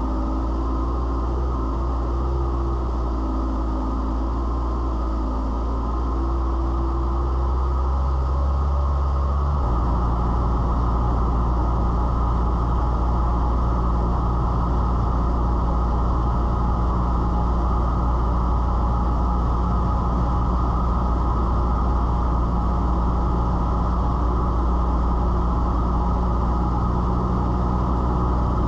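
Cessna 172's piston engine and propeller droning steadily, as heard inside the cockpit in flight; the engine's tone shifts to a new steady note about ten seconds in.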